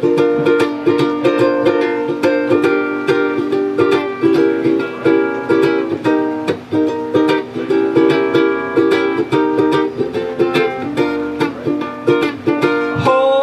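A small acoustic string instrument strummed in a brisk, steady rhythm of chords, the instrumental intro of a song.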